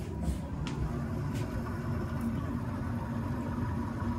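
Water running into a Bosch mini-tank water heater as it fills from the supply line: a steady low rush of flow. A few light clicks come in the first second and a half.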